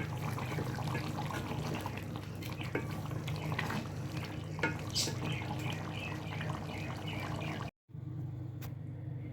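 Chicken curry cooking in a pan, sizzling and bubbling with irregular crackles and occasional clicks, over a steady low hum. About eight seconds in, the sound cuts out briefly, and only the quieter hum is left.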